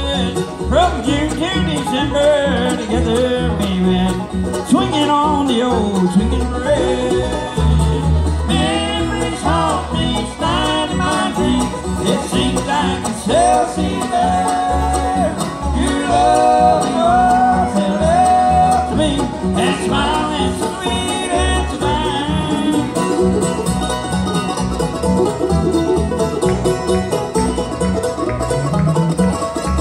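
A live bluegrass band playing on banjo, fiddle, mandolin, acoustic guitar and upright bass.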